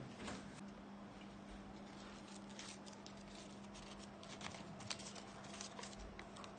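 Soft, irregular clicks and taps of small objects being handled in the hands, over a steady low hum.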